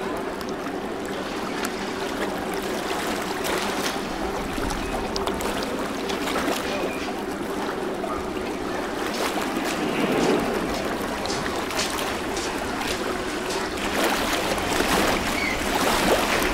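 River water washing and lapping, with a steady boat engine hum through the first half. Scattered light clicks run throughout, and the water noise grows louder near the end.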